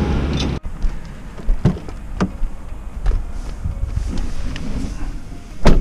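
A low rumble cuts off about half a second in, followed by scattered knocks and scuffs as someone gets into a car. Near the end the Mustang's door shuts with a heavy thud, the loudest sound.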